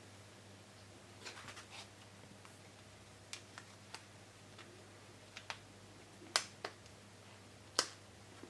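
Faint taps and clicks of a smartphone in its case being handled, with a few sharper clicks in the second half, over a faint steady low hum.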